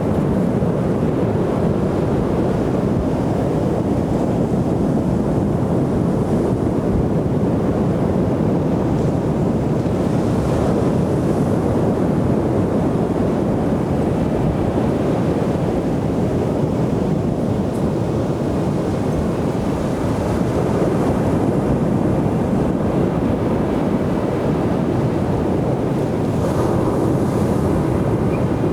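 Ocean surf washing onto a beach: a steady, unbroken rush of waves with no single break standing out, and wind rumbling on the microphone underneath.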